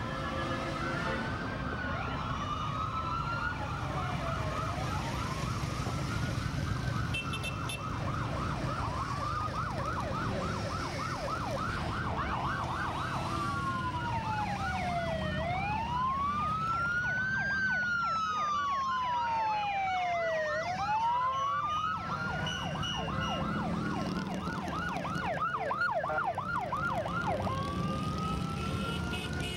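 Police sirens, more than one at times, switching between a slow rising-and-falling wail and a rapid yelp, over the low rumble of passing motorcycle engines.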